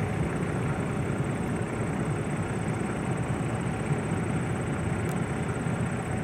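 Diesel road-switcher locomotive's engine running steadily as it rolls slowly ahead with a string of hopper cars.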